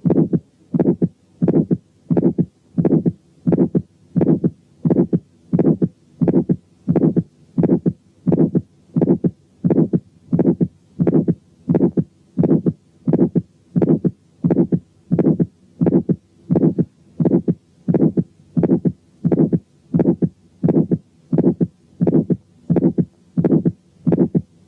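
Recorded heart sounds through a stethoscope's diaphragm over the aortic area, beating in a steady regular rhythm: aortic stenosis, with an ejection click and an ejection systolic murmur on every beat.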